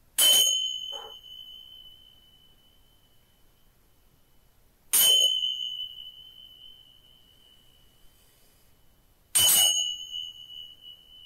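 Tingsha cymbals, a pair of small brass cymbals on a cord, struck together three times about four and a half seconds apart, each strike ringing on in one high tone that slowly fades. They are rung to cleanse the space.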